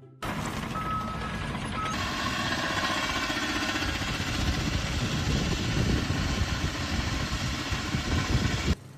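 An engine running steadily with a rough, noisy rumble, starting abruptly and cutting off suddenly near the end.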